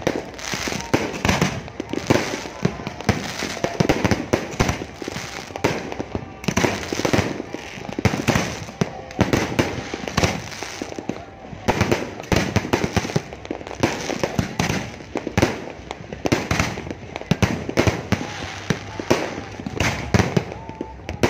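Fireworks display: a rapid, unbroken barrage of bangs and crackles from many shells bursting close together.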